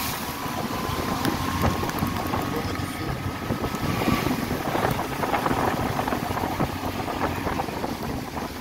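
Vehicle running along a rain-soaked, flooded road: steady engine and tyre noise through water, with wind buffeting the microphone.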